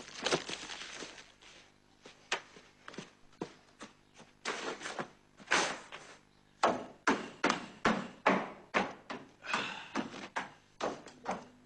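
A series of irregular knocks and taps, at times two or three a second, with a few brief rustling stretches between them.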